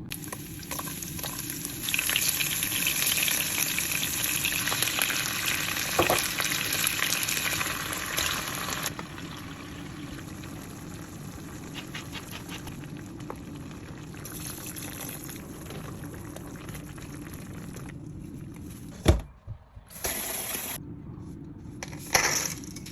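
Kitchen cooking sounds: a steady hiss, loud for about seven seconds and then softer, with a sharp knock near the end.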